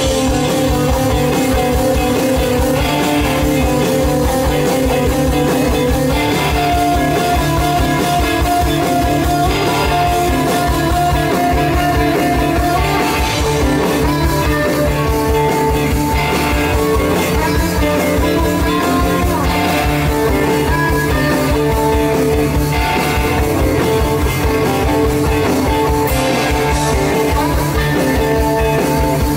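Live psychedelic rock band playing: electric guitars with held notes, bass and a steady drum beat, with no vocals heard.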